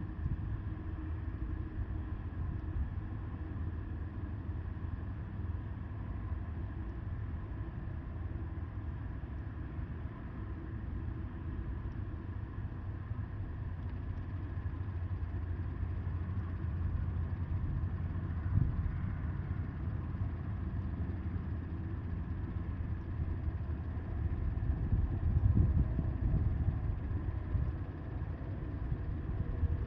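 Wind buffeting the microphone as a steady low rumble, with stronger gusts a little past halfway and again near the end.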